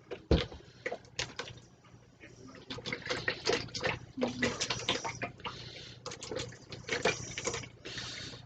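Liquid splashing and sloshing in a pot, broken by irregular clinks and knocks of kitchenware, with a sharp knock right at the start.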